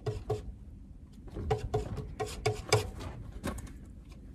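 Palette knife tapping and scraping on the palette as paint is mixed: a run of short, irregular clicks with some brief ringing ones, busiest around the middle.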